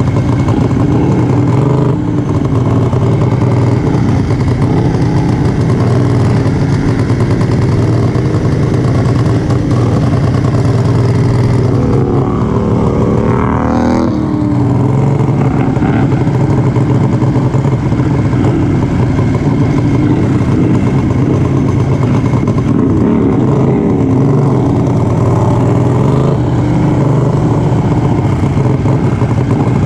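Racing lawn mowers' engines running hard and steady under full throttle, heard from the driver's seat of one mower with other mowers' engines mixed in. About halfway through, another mower's engine passes close alongside, its pitch sliding down.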